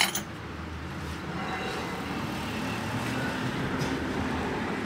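Steady low mechanical hum with a held drone, growing a little louder about a second in.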